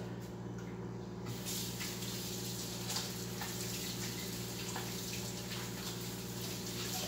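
Kitchen tap running into a stainless steel sink while hands are washed under it. The water starts about a second in, over a steady low hum.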